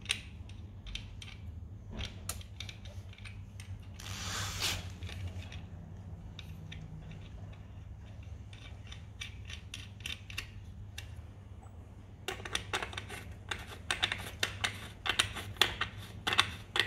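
Light metal clicks and taps of the clutch retaining nut being threaded by hand onto an Aprilia SR50R scooter's clutch and torque driver, with a brief rustle about four seconds in. In the last five seconds the clicks come thick and sharp as a socket is fitted over the nut.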